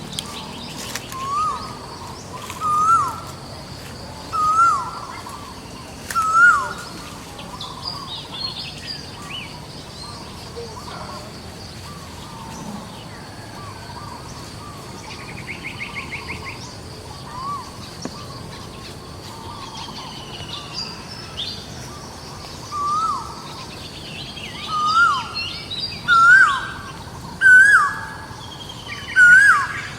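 A series of short, high animal calls, each rising then dropping in pitch, about one every second or two, growing louder and more frequent near the end, over a steady outdoor background hiss. A brief fast rattle comes about halfway through.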